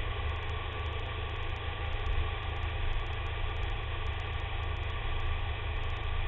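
BMW K1300S inline-four engine running at a steady cruise, with wind rumble on the fairing-mounted microphone.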